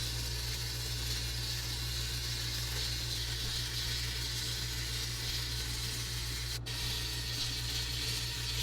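A steady hiss of rushing air or spray over a low, even machine hum. It breaks off very briefly about six and a half seconds in, then carries on until it cuts off abruptly at the end.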